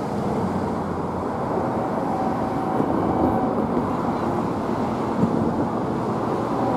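Low, steady rumble of an approaching CSX diesel-hauled freight train, still far off and slowly getting louder.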